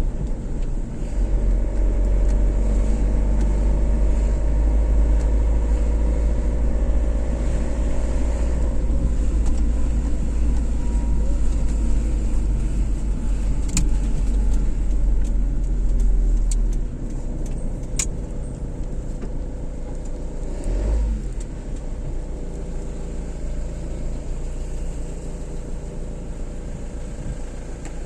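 A car driving on a motorway: a steady low rumble of road and engine noise, easing somewhat a little over halfway through, with a couple of faint clicks.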